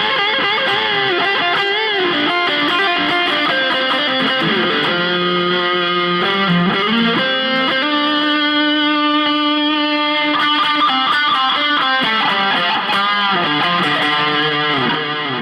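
Electric guitar with P90 pickups, a Tele-style solid body, played as a lead line of sustained, singing notes with string bends and vibrato.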